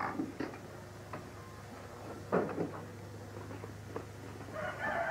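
Scattered light knocks and handling sounds over a low steady hum; near the end a rooster starts to crow.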